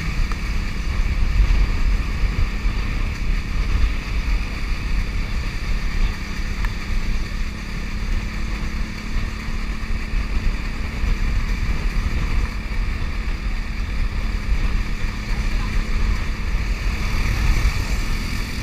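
Wind buffeting the microphone of a motorcycle on the move, over the steady drone of the motorcycle's engine.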